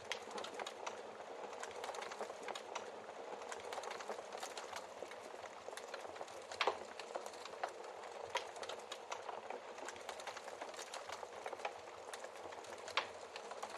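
Wood fire crackling steadily, with a few louder log pops scattered through, the loudest about seven seconds in.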